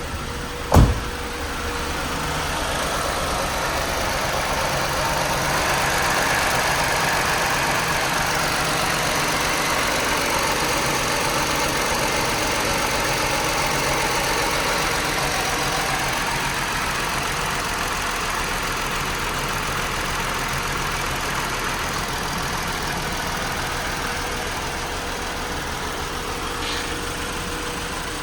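2018 Chrysler Pacifica's 3.6-litre V6 engine idling steadily, after a sharp knock about a second in. The van has a P0300 multiple-cylinder misfire: it idles normally for about 25 seconds after starting, then begins to idle rough.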